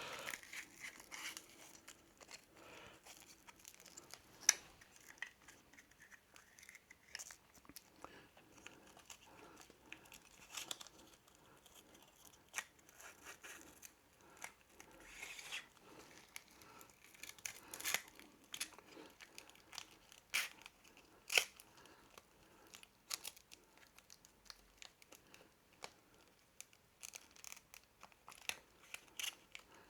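Split braided cable sleeving being worked over a wire with a small 3D-printed plastic feeding tool: faint, scattered rustling and scraping with short sharp clicks.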